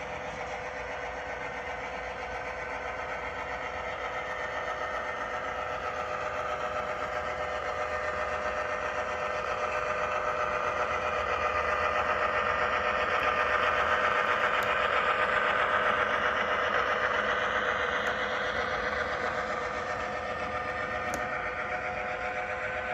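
HO scale model diesel locomotive running slowly by with its train, a steady engine sound that grows louder as the locomotive passes closest, about two-thirds of the way through, then eases off as the boxcars roll past.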